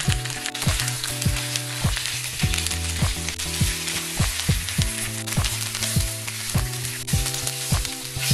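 Oil sizzling steadily as food pan-fries in a nonstick pan.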